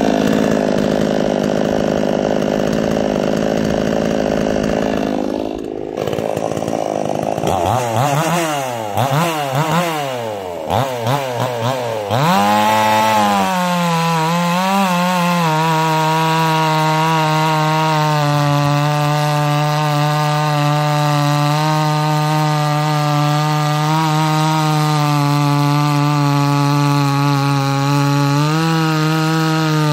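Two-stroke chainsaw engine running, then revved up and down several times, then held at high revs cutting wood; its steady note drops a little partway through and climbs again near the end.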